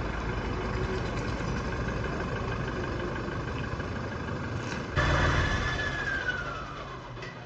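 A vehicle engine running steadily. About five seconds in it abruptly gets louder, with a whine that falls in pitch over about two seconds and then fades.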